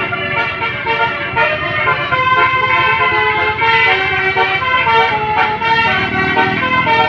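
Bus telolet horn, a multi-tone musical air horn, playing a fast tune: several notes sound together and change pitch every fraction of a second, without a break.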